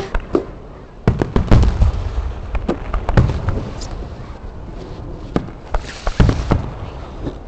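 Fireworks going off: a rapid series of sharp bangs and pops with crackle, thickest about a second to two seconds in and again around six seconds in.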